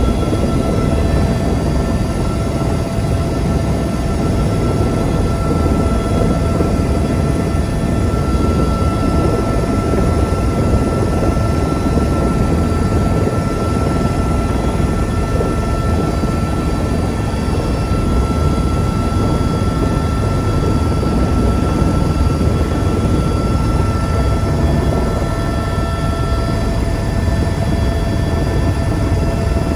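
Helicopter engine and rotor running steadily, heard inside the cabin: a loud, dense rumble with a steady high whine that grows stronger for a while in the middle.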